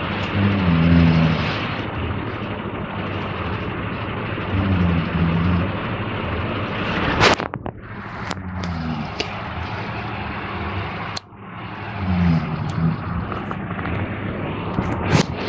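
A man snoring, a low rasping snore about every four seconds over a steady background hiss, with a few sharp clicks partway through.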